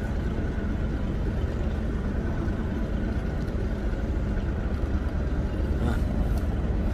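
Boat engine running at idle: a steady low rumble, with a couple of faint clicks about six seconds in.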